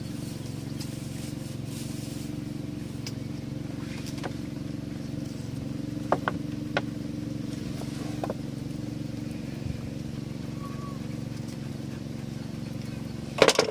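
A motor runs steadily with an even low hum, with a few faint clicks about six seconds in and a loud sharp clatter near the end.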